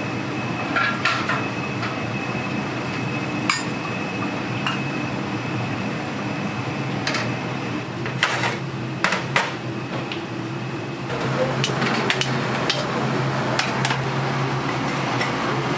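Scattered sharp clanks and knocks of metal kitchenware and dishes over a steady mechanical hum, turning into a busier clatter in the last few seconds.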